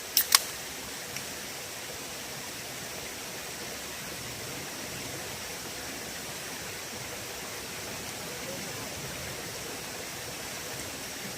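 Mountain stream rushing steadily, swollen after rain. Two sharp clicks just after the start, and a faint one about a second in.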